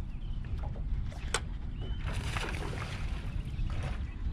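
Wind rumbling on the microphone and water lapping against the hull of a bass boat. There is one sharp click a little over a second in, then a hiss for about a second and a half from the middle.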